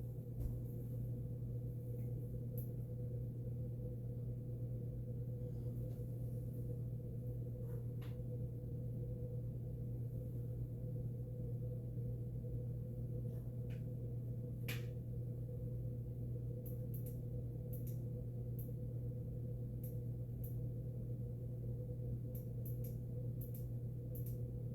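A steady low hum, with faint short clicks scattered through it and several coming close together near the end.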